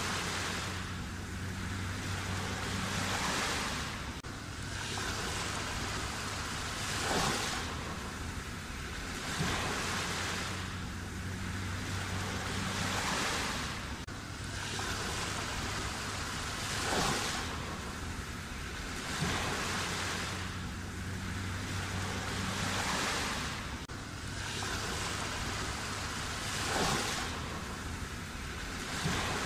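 Black Sea waves breaking on the shore, the surf swelling and falling back every few seconds, with now and then a sharper splash. A faint low hum comes and goes beneath the surf.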